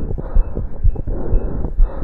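Human heartbeat heard through a stethoscope, fast at about two beats a second: the heart rate raised by exercise. A steady rushing noise runs under the beats.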